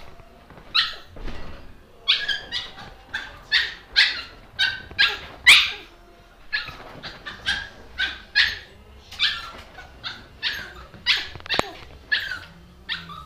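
Small white poodle yapping in a long run of short, high-pitched barks, about two to three a second, with a brief pause about six seconds in.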